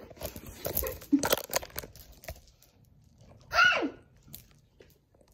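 Plastic sweet wrappers crinkling and tearing in a quick run of rustles, then a short high cry from a person, falling steeply in pitch, about three and a half seconds in.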